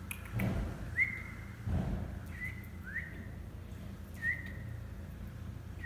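A small bird giving short whistled call notes, about five of them spaced irregularly, each sliding sharply up and then held briefly. Two short rustles come in the first two seconds.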